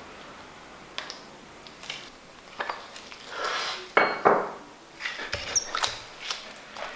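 Irregular clinks and knocks of hard parts being handled and set down, the loudest a short ringing clank about four seconds in.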